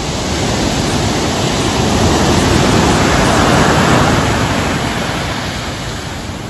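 Sea surf: a wave breaking and washing up the shore, a steady rush that swells to its loudest about halfway through and then slowly ebbs.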